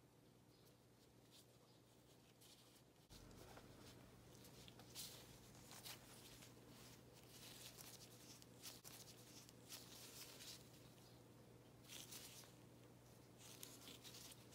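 Near silence with a low steady hum, and from about three seconds in a few soft, scratchy rustles as gloved hands handle cloth face masks and fabric.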